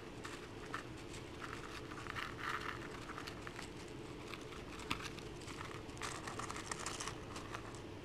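A squirrel feeding in a dish of sunflower seeds and mixed seed: a run of small crackling clicks and rustles as it digs through the seeds and husks and cracks them. The crackling is thickest about two seconds in and again around six seconds.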